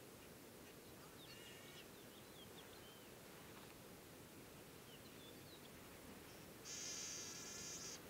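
Trumpeter finch singing: a short buzzy note about a second and a half in, then a long buzzing note of about a second near the end, the loudest sound. Faint short bird chirps come in between.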